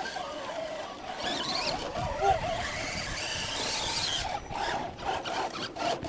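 Electric motor and gear whine of an RC rock crawler, rising and falling in pitch with the throttle as it climbs boulders, with clicks and knocks of its tyres and chassis on the rocks near the end.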